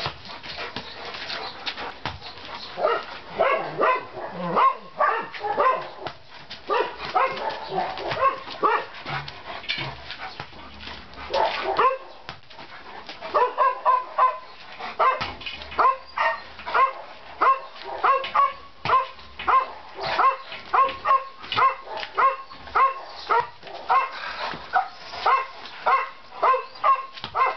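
Large Newfoundland dog barking repeatedly at a ball held out of its reach during play. Irregular barks and yips at first, then from about halfway a steady run of barks, nearly two a second.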